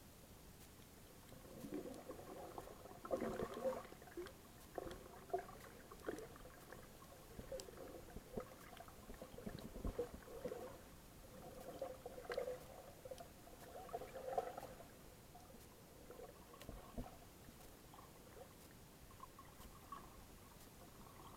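Faint muffled underwater sound picked up by a submerged camera: irregular short squeaks and scattered thin clicks, busiest through the first two-thirds and thinning out toward the end.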